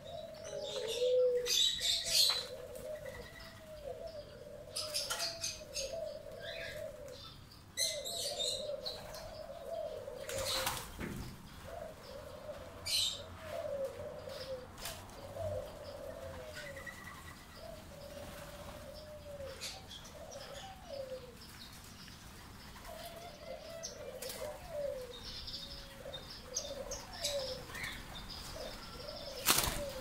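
Many doves cooing in overlapping, repeated phrases, with smaller birds chirping over them and several short bursts of wing-flapping.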